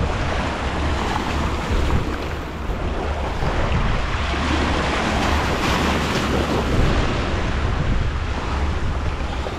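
Rough sea, churned up by a strong westerly wind, surging and breaking against a rock breakwater, with wind buffeting the microphone as a steady low rumble.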